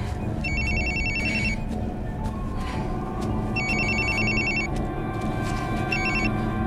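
Mobile phone ringtone trilling in bursts of about a second, three rings roughly three seconds apart, the last one cut short, over a low, steady music score.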